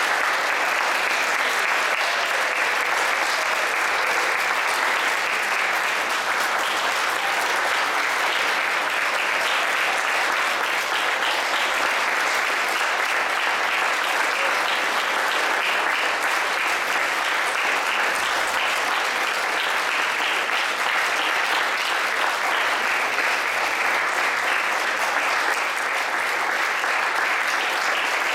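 Audience applauding: dense, steady clapping of a large crowd with no let-up.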